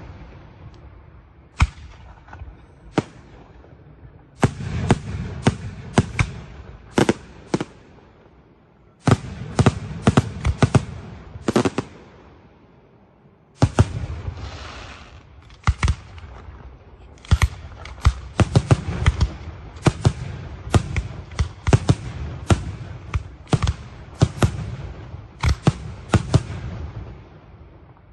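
Aerial fireworks shells bursting in rapid salvos of sharp bangs, with short lulls between groups and a low rumble after them. A brief crackle sounds about halfway through.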